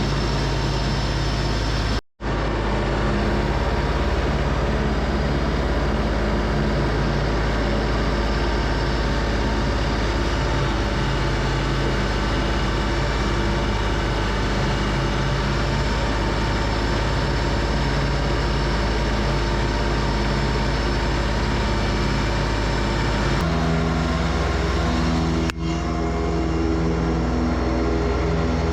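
LS MT225s compact tractor's three-cylinder diesel engine running steadily under load while mowing with its belly mower deck. The sound cuts out for an instant about two seconds in and shifts to a slightly different pitch near the end.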